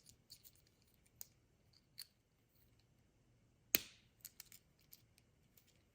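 Small handling noises from opening a Kinder Surprise egg and its toy: scattered light clicks and ticks, with one sharp snap a little under four seconds in.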